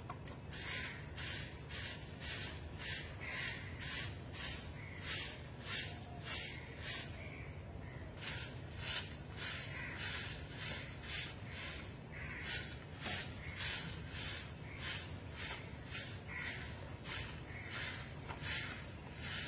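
Soft grass broom sweeping a dirt yard in quick, regular swishing strokes, about two a second.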